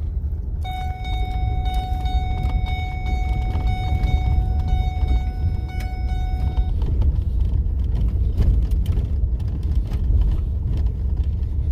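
Vehicle running down the road, heard as a steady low rumble. A steady high tone with overtones sounds from about a second in and stops about six seconds later.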